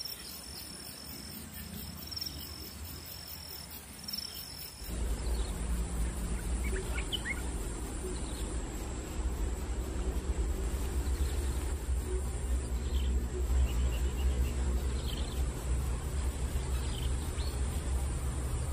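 Insects trilling in short, high bursts over a steady high insect whine. About five seconds in, a low rumble comes in underneath, with a few faint bird chirps.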